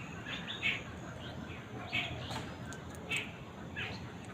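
Birds chirping: short, separate calls a few times a second, over a steady low background hiss.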